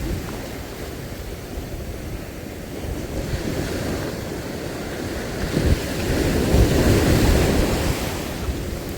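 Sea waves washing in against shoreline rocks, with wind buffeting the microphone. A bigger wave surges in about halfway through and ebbs away near the end.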